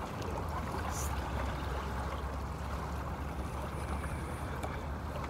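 Steady wind and water noise at the shoreline, a low rumble under a constant hiss.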